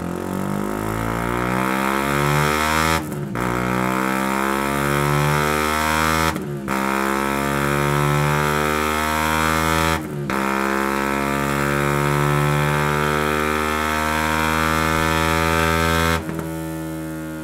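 Benelli BN 125's single-cylinder four-stroke engine breathing through a Scorpion stainless full exhaust system with RedPower silencer, pulling under load on a rolling-road dyno. The engine note climbs steadily, with three brief dips about 3, 6½ and 10 seconds in. About 16 seconds in the throttle shuts and it falls back to a steady idle.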